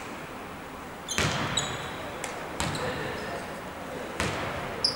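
A basketball bouncing on a hardwood court, three bounces about a second and a half apart, with short high squeaks among them.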